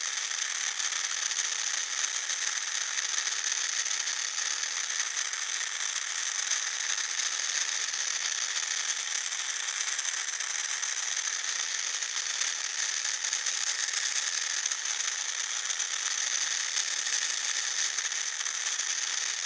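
Small electric motor running steadily at constant speed, with a high steady whine over a fast, even mechanical rattle.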